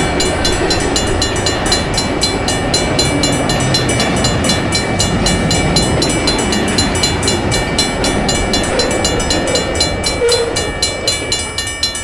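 Railroad crossing bells ringing in a fast, even rhythm of about four strikes a second, over the low rumble of a passing train. The rumble fades near the end while the bells keep ringing.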